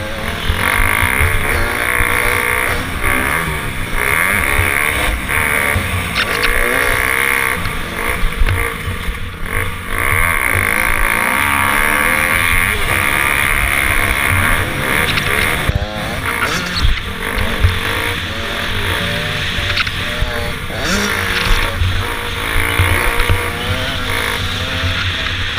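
Dirt bike engine revving up and falling back again and again as the rider accelerates, shifts and rolls off, with rumbling wind noise on the microphone.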